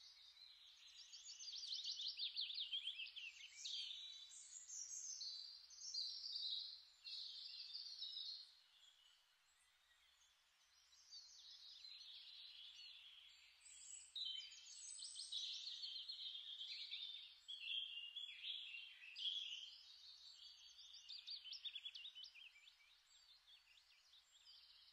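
Faint birdsong: phrases of rapid high chirps and trills a second or two long, with pauses between them and a silent gap about a third of the way in.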